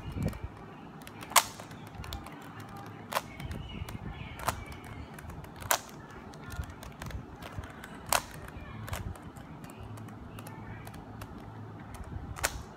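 Rubik's Cube being turned with one hand during a solve: its plastic layers click and clack at irregular intervals, with a few sharper snaps among many faint clicks.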